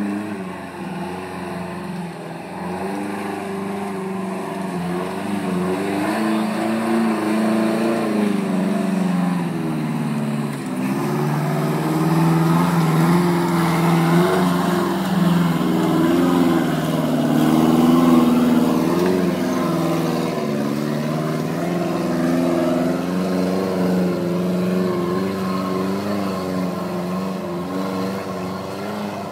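Ultra4 rock-racing buggy engine running hard, its pitch rising and falling as the throttle is worked on and off while the car crawls over rocks. It grows louder in the middle stretch.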